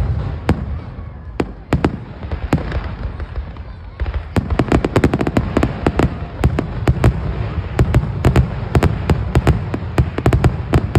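Aerial fireworks exploding: a few scattered bangs at first, then from about four seconds in a rapid, dense barrage of overlapping bangs over a continuous low rumble.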